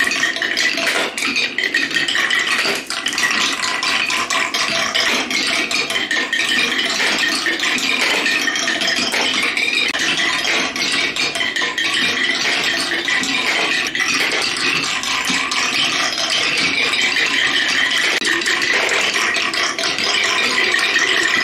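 Marbles running down a wooden spiral marble-run tower, clicking and clattering continuously as they drop from one wooden petal ramp to the next.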